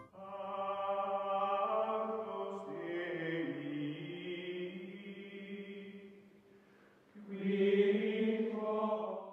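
Outro music of sustained choir-like chanting holding long chords. It fades almost away about six seconds in, swells up again about a second later and cuts off abruptly at the end.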